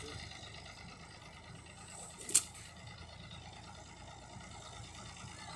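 Distant Al-Ghazi (Fiat) tractor engine running faintly and steadily. A single sharp click about two seconds in.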